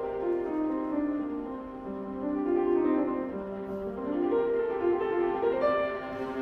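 Viola and grand piano playing the slow third movement (Adagio) of a viola sonata: a sustained, legato viola melody over piano accompaniment.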